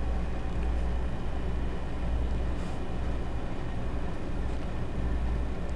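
Schnauzer breathing noisily at rest, a steady low, rough rumbling rasp: stridor, which the owner puts down to his congestive heart failure.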